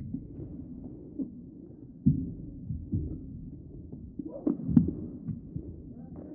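Muffled low thuds of a badminton rally: rackets striking the shuttlecock and players' feet landing on the court. The sharpest thuds come about two seconds in and near five seconds.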